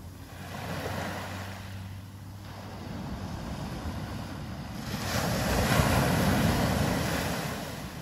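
Small waves breaking and washing up a sandy beach: the surf swells about a second in, then again, louder, about five seconds in before it ebbs.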